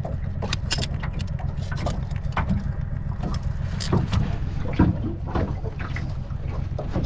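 Handling noise from a GoPro camera pushed into a mud crab's hole in mangrove mud: a steady low rumble with scattered knocks and scrapes.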